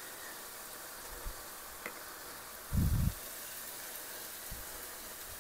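Faint, steady sizzling of a bacon mixture simmering in a pan on the stove, with a short dull thump about three seconds in and a few light clicks.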